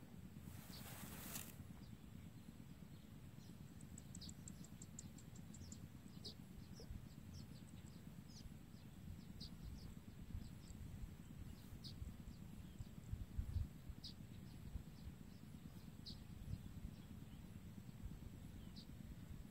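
Small bird chirping in short high notes, a quick run of them about four seconds in, then scattered single chirps, over a low steady rumble. A brief rush of noise near the start and a few soft low thumps about thirteen seconds in.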